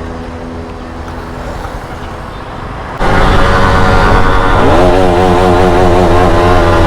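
Motorcycle engine running at a steady idle. About three seconds in it gets abruptly much louder, and the engine note climbs and wavers up and down as the throttle is worked repeatedly.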